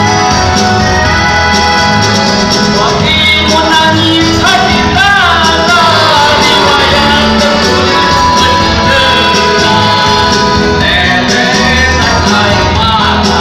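Music: an instrumental passage of an Indonesian pop song, with keyboard and bass over a steady beat and a wavering melody line about a third of the way in.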